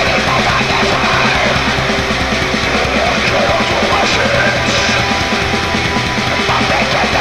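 Heavy metal song playing loud and without pause: a dense wall of distorted guitar with rapid drum hits underneath.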